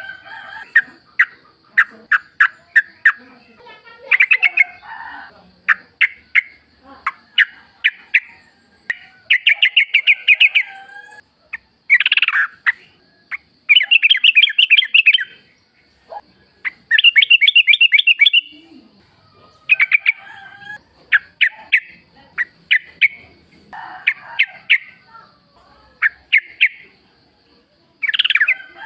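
Yellow-vented bulbul (trucuk) song: a run of sharp chirps and bubbly, rapidly warbled phrases, some lasting a second or two. A faint steady high-pitched tone runs behind.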